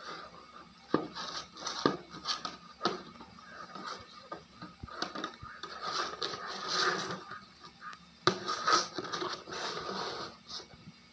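A plastic bucket knocking and scraping on a hard floor as a puppy noses and paws it about. There are several sharp knocks in the first few seconds and another about eight seconds in, with longer stretches of scraping between them.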